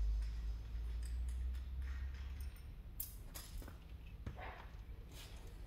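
A low rumble for the first couple of seconds, then a few light clicks and taps as a bolt is fitted by hand into the indicator stalk assembly.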